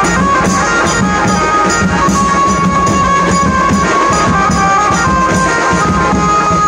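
A live street band plays loud, steady dance music. A drum kit with cymbals keeps a regular beat under a held melody line.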